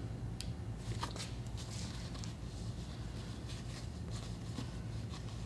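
Faint handling noises: soft taps and rubbing as hands work a clay coil on a board, a few light ticks scattered through, over a steady low hum.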